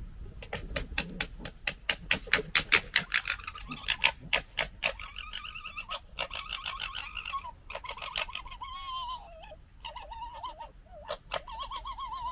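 Red foxes gekkering: a fast, stuttering chatter for the first five seconds or so, then wavering, warbling whines for the rest.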